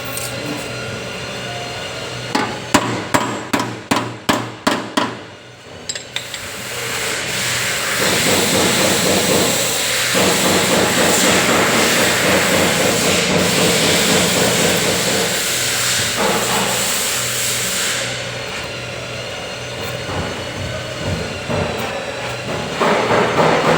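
Hammer blows on car body metal, about ten quick strikes in a row a few seconds in. After a short pause comes a long, loud, steady noise from a workshop tool that runs for about ten seconds and then drops away.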